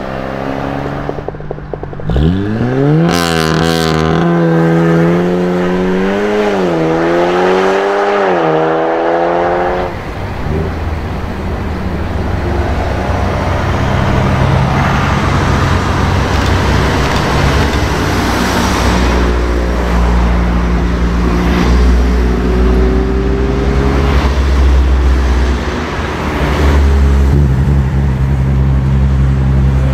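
Volkswagen Golf 7 GTI's turbocharged four-cylinder accelerating hard, its pitch rising steeply and then holding high with brief dips. After about ten seconds it cuts to the deeper exhaust rumble of other Golf 7s, including a Golf R, driving past and revving.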